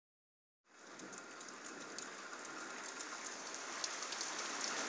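Rain falling steadily, with scattered drop ticks; it starts about a second in and slowly grows louder.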